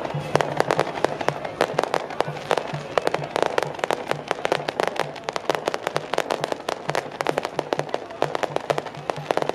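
Strings of firecrackers going off in a rapid, irregular crackle of sharp pops, over a low pulsing hum.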